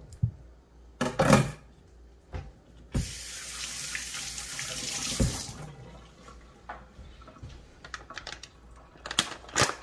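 Kitchen faucet running into a stainless-steel sink for about two and a half seconds as gloved hands are rinsed, then shut off. A short, loud clatter about a second in is the loudest sound.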